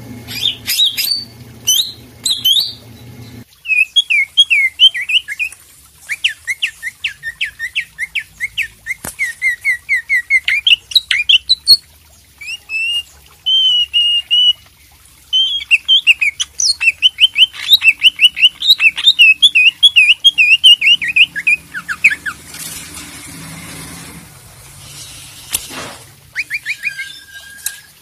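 Caged cucak ijo (green leafbird) singing in long, rapid runs of repeated chirping notes, a bird in full song ('gacor').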